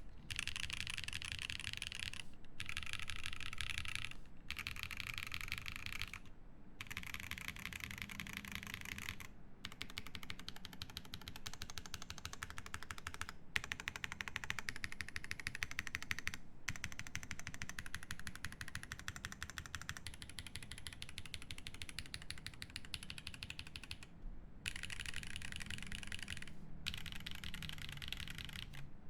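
Fast continuous typing on a Frog TKL mechanical keyboard with lubed Drop Holy Panda tactile switches, an aluminium plate, case foam and GMK keycaps: a dense run of key clacks, with brief pauses every few seconds.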